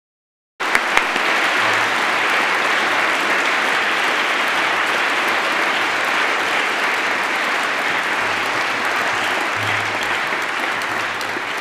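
Large audience applauding steadily, the clapping starting abruptly just under a second in.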